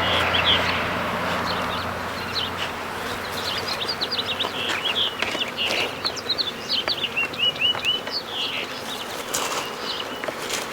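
Honeybees buzzing around an open hive, with a low steady hum that fades over the first two seconds. Small birds chirp in many short, high notes throughout.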